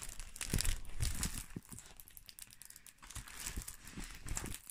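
Plastic cover film of a diamond painting canvas crinkling and crackling as the canvas is handled, in irregular bursts, loudest in the first second and a half.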